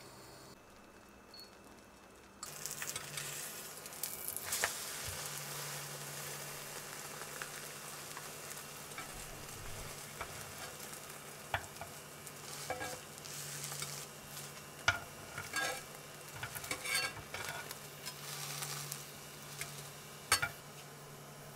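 Beaten egg and egg-soaked bread frying in a nonstick pan: a steady sizzle that starts about two and a half seconds in, with scattered clicks and scrapes of wooden chopsticks and a metal slotted spatula against the pan as the egg is folded over the bread.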